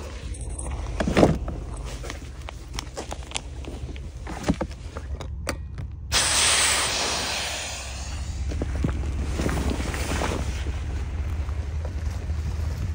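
Air rushing out of an opened valve on an inflatable floating tent: a hiss that starts suddenly about halfway through and fades over a couple of seconds. Before it come rustling and knocks of the vinyl being handled, with one sharp thump about a second in.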